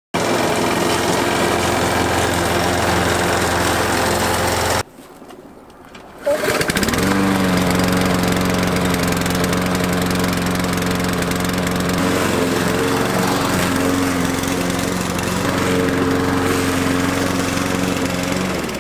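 Gasoline walk-behind lawn mower's single-cylinder engine running steadily while cutting grass. About five seconds in it drops away briefly, then comes back closer and clearer as a steady hum.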